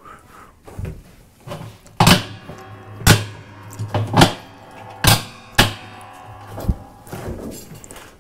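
Plastic tub ring of a Speed Queen top-load washer being pressed and knocked down onto the outer tub rim: about six sharp knocks and snaps, roughly a second apart, over a steady low hum.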